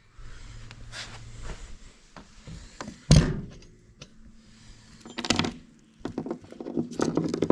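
Metal parts of a mini bike's centrifugal clutch being handled and pulled off the engine shaft by hand: scattered clicks and clinks, with one heavy thunk about three seconds in.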